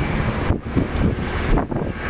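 Wind buffeting the microphone over the low rumble of a tour boat's motor moving along the canal.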